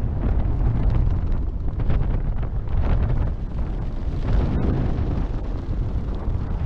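Strong rushing wind blasting the microphone: a loud, steady low rumble that flutters in level, the airflow of a skydive.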